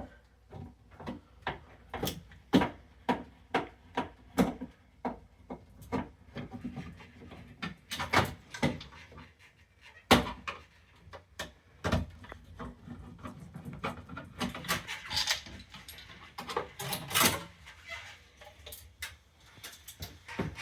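Handling noises from a doorbell chime unit being disconnected and taken off the wall: irregular plastic clicks and taps, a few louder knocks about halfway through, and some scraping and rubbing later on.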